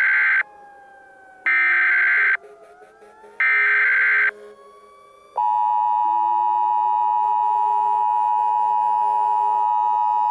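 Emergency Alert System signal: short bursts of shrill, buzzing data tones (the SAME header) switching on and off about a second apart, then from about five seconds in the steady two-tone EAS attention signal, held without a break.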